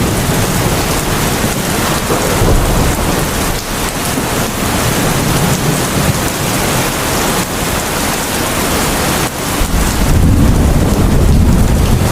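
Steady heavy rain with low thunder rumbling, the rumble growing louder about ten seconds in.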